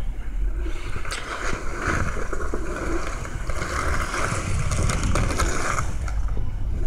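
Volkswagen Touareg TDI's V6 diesel pulling steadily under load as the SUV drives forward out of a deep snowbank, its tyres pushing through packed snow.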